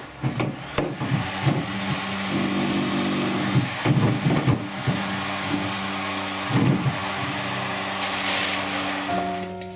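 Small electric fan heater blowing steadily under the floorboards of a wooden boat hull, warming it before epoxy is applied, with a few knocks as it is set in place. Near the end the boat cover rustles as it is pulled back over.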